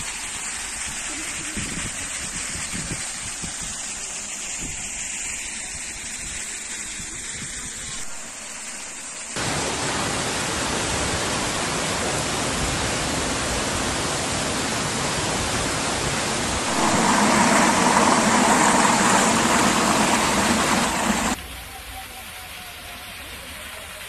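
Waterfall cascading down a rock face into a pond, a steady rushing splash of water. It jumps louder about nine seconds in and again a few seconds before the end, then drops abruptly to a quieter rush near the end.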